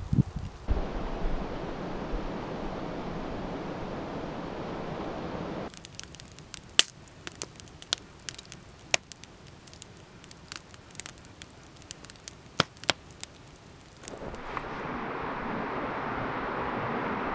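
Wood fire crackling, with sparse, irregular sharp pops, some much louder than others. Before and after the crackling, cut in abruptly, is a steady rushing noise.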